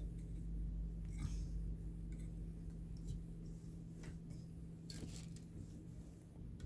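Faint clicks and rustles of a plastic microphone shock mount being handled and fitted onto a desk stand, a few scattered light knocks over a steady low hum.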